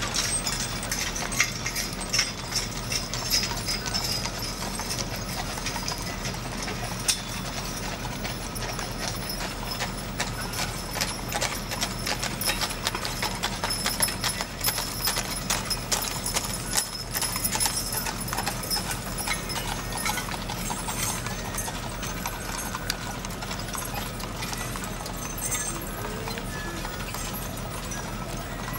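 Horses' hooves clip-clopping on an asphalt street as teams pull wagons past, an uneven run of hoofbeats that thickens as more teams go by, most densely midway through.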